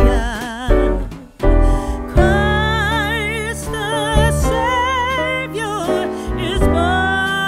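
Slow background music: a melody with wide vibrato over piano and low bass, with a short break a little over a second in.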